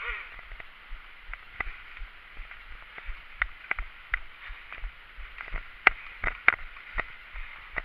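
Scattered sharp clicks and knocks at irregular intervals, the two loudest about six seconds in.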